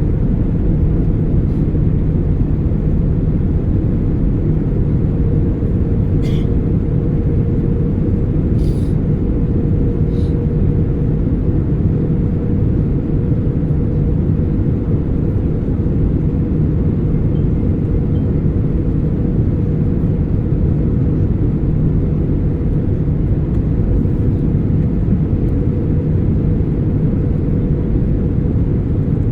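Airbus A320 cabin noise: a steady deep roar of engines and airflow with a steady hum over it, and a few faint clicks about a quarter of the way in.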